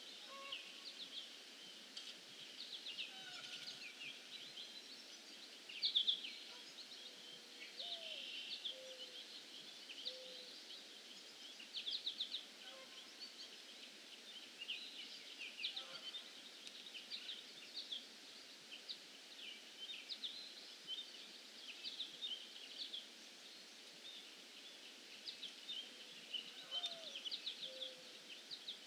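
Wild songbirds calling: many quick high chirps and short trills overlapping throughout, with a few lower whistled notes now and then.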